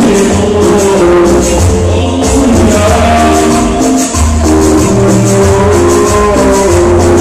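Loud dance music from a sonidero's DJ sound system, with a steady shaker rhythm over a bass line.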